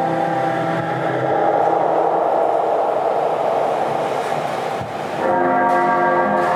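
Free-skate program music over the arena speakers: sustained, bell-like held tones, with a denser swell that drops off briefly about five seconds in before held chords come back.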